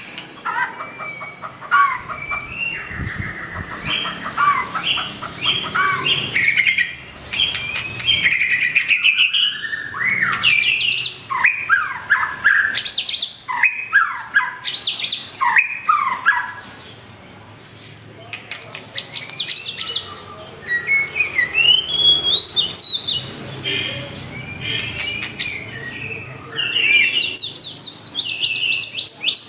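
White-rumped shama (murai batu) singing a long, varied song of rising and falling whistles, chirps and fast rattling trills, with a short lull a little past the middle.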